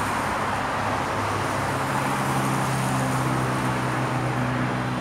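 Motor vehicle engine running steadily at idle, a low even hum, over a steady background of road traffic noise.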